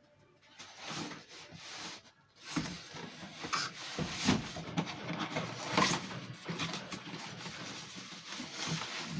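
Handling noise from a large cooking pot: irregular rubbing, scraping and light knocks as it is picked up and turned over, starting up about two and a half seconds in.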